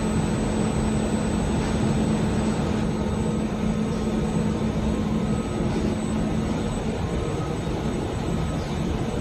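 Yarn sizing machine and surrounding textile mill machinery running: a steady mechanical drone with a constant low hum and a faint high whine.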